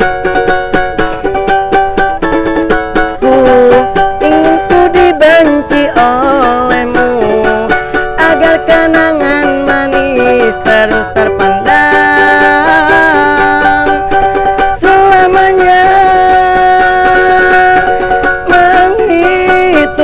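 A ukulele strummed quickly through a song's wordless stretch. Over it runs a held, wavering melody line whose notes bend and slide.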